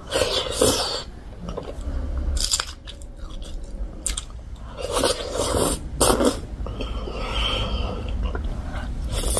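A person biting into and chewing a steamed momo dumpling dipped in achar, with loud wet chewing. The louder bites come at the very start, about two and a half seconds in, and again about five to six seconds in.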